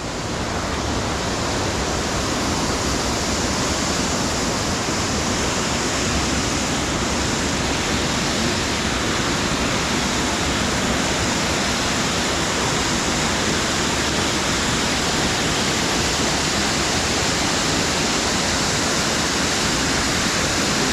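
Waterfall pouring into its plunge pool, a loud, steady rush of falling water heard close up.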